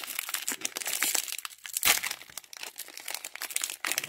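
Wrapper of an NFL Optic fat pack of trading cards crinkling and tearing as it is handled and ripped open, in a run of irregular sharp crackles.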